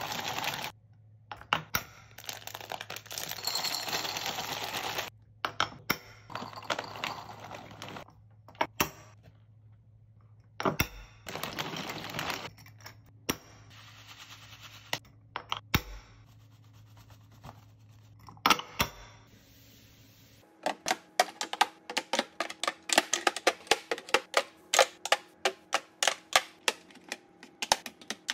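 Plastic snack bags crinkling as white chocolate chips and hemp seeds are poured from them into glass clip-top jars, with scattered clicks and clinks of glass. Over the last several seconds comes a fast run of sharp clicks, several a second.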